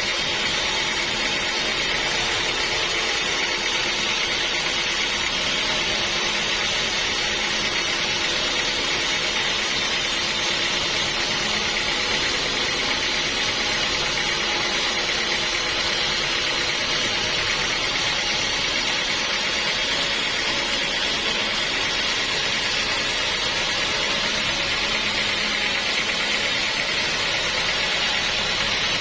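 Sawmill machinery running steadily: a constant hiss over a low steady hum, with no breaks or knocks.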